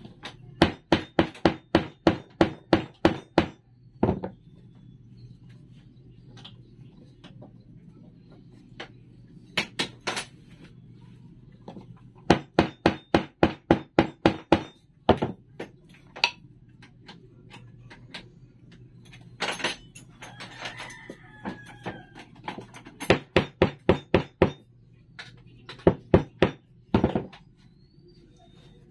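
Rubber mallet tapping wooden dowel legs down into a plywood base. The strikes come in quick runs of about four a second, with pauses and single taps between.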